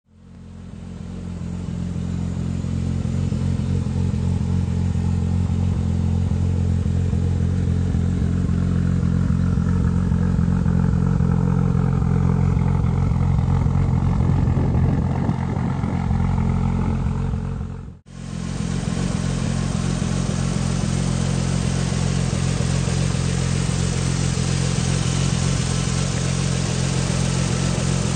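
Turbocharged Toyota 2JZ-GTE straight-six, swapped into a Mercedes 500SL, running steadily at a low, even engine note. The sound breaks off briefly about eighteen seconds in, then carries on the same.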